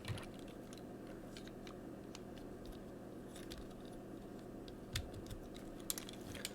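Plastic parts of a Transformers Siege Hound action figure clicking faintly as its guns are fitted on: a handful of scattered, irregular clicks over a steady low hum.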